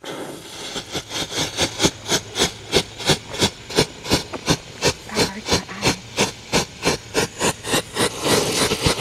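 Firework burning: a steady hiss with a rapid, even run of sharp crackling pops, about four or five a second.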